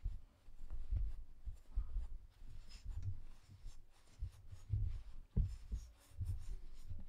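Hands stuffing polyester fiberfill into a crocheted amigurumi piece of chunky blanket yarn: soft rustling and rubbing with irregular low thumps as the piece is squeezed and pressed.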